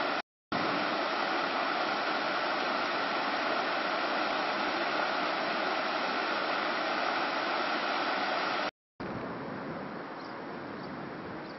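Steady rush of river water spilling over rocks in a small rapid. It drops out briefly twice, and after the second break, about nine seconds in, it goes on quieter.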